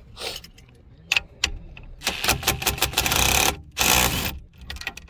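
Socket ratchet clicking as a 7/8 socket is worked on the steering-wheel nut: a few single clicks, then two quick dense runs of clicking in the second half.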